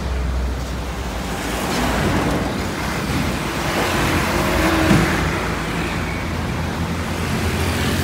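Heavy trucks passing close by, their diesel engines and tyres rising and falling as they go past, followed by a stream of motorcycles.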